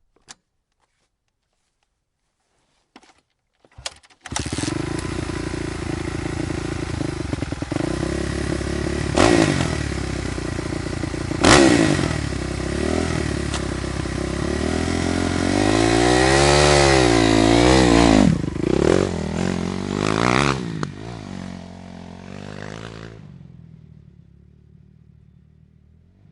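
Motorcycle engine starting after a few clicks about four seconds in, then idling and being revved repeatedly with sharp blips and a run of rising-and-falling revs, before dying away near the end.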